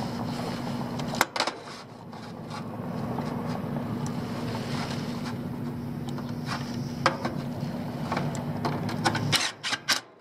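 Steady machine hum with a constant low tone, under sharp clicks and taps of hands working wires and screws in a condenser unit's metal control panel. The clicks come once about a second in, once about seven seconds in, and in a quick cluster near the end, as the hum drops away.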